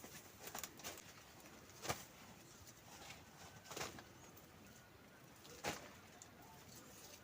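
Three sharp knocks about two seconds apart over a quiet background.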